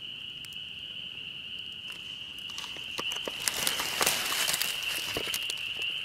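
Rustling, clicking and crunching from about two and a half seconds in, as the hand-held camera is picked up and turned and feet move in dry leaf litter. Under it runs a steady high-pitched animal chorus.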